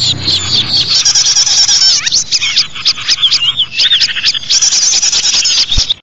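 Several small songbirds chirping and trilling rapidly, high-pitched calls overlapping densely with quick up-and-down sweeps. A single sharp click sounds just before the end.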